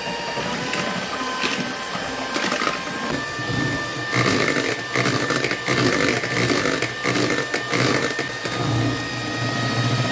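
Philips electric hand mixer running, its beaters whipping egg whites toward soft peaks. The motor whine steps up in pitch about three seconds in, and a rapid clatter runs from about four to eight seconds in.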